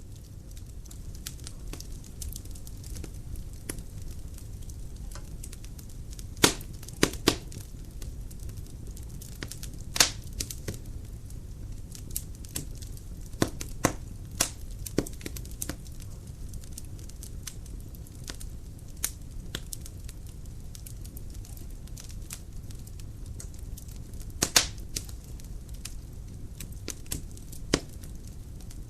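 Dry firewood burning in a fireplace: a steady low rush of flame with scattered sharp crackles and pops. The loudest pops come in clusters, about six to seven seconds in, around ten and fourteen seconds, and again near the end.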